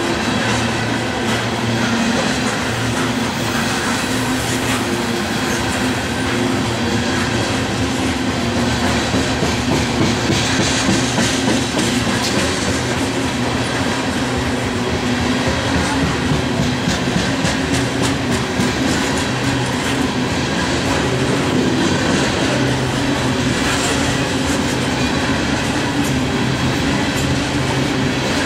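Loaded-length coal train's hopper cars rolling past: a steady rolling noise of steel wheels on rail, with clicks as the wheels cross rail joints.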